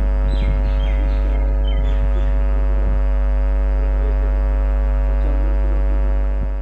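A loud, steady machine hum holding many fixed tones, with a few short bird chirps in the first two seconds.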